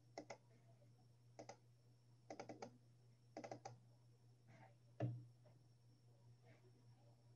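Faint clicking at a computer: small groups of quick clicks, a few at a time, with a louder thump about five seconds in, over a low steady hum.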